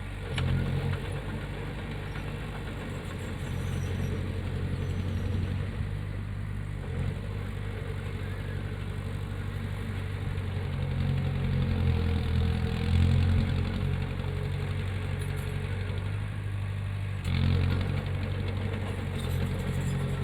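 Heavy earthmoving machinery's diesel engine running steadily with a low hum. It swells under load, loudest about two-thirds of the way in, then steps up again briefly near the end.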